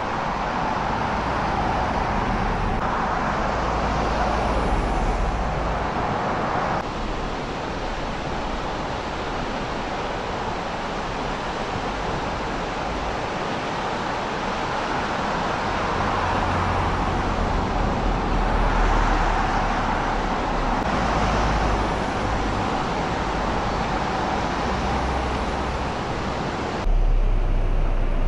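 Steady outdoor hiss of rain and traffic on wet roads, with a low rumble that comes and goes. The sound changes abruptly a few times, where the recording cuts between takes.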